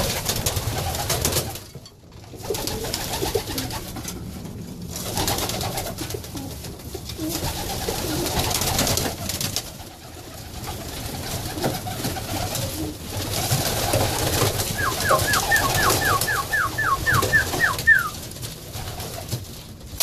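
A flock of Budapest pigeons cooing and beating their wings in a wooden loft. Near the end comes a quick run of about a dozen short high peeps, about four a second.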